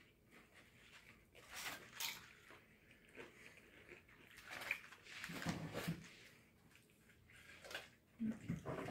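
Faint, scattered crunching and chewing of nacho tortilla chips by several people eating at once.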